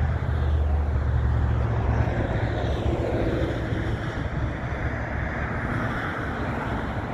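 Freight train cars rolling slowly past: a steady rumble of steel wheels on rail, with a low hum in the first couple of seconds that fades away.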